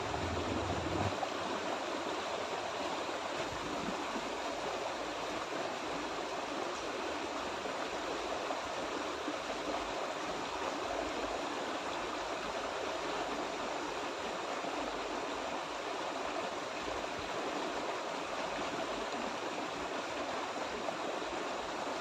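Small rocky stream rushing and splashing steadily over a low cascade.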